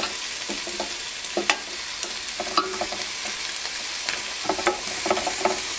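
Lamb chops sizzling on the Ninja Foodi Grill's hot grill grate as they are turned over with tongs. A steady hiss is broken by scattered clicks and knocks of the tongs against the grate and the meat.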